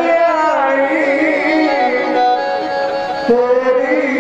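A singer holding long, wavering notes in a devotional song, over a steady harmonium drone. The sung line breaks about three seconds in and starts a new held note.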